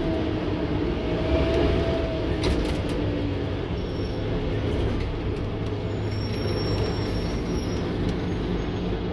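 Interior sound of a Scania N230UD OmniCity single-deck bus under way: its 9-litre five-cylinder diesel engine and drivetrain drone steadily with road noise. A short, slightly rising whine comes about a second in, and a few faint clicks follow a second or so later.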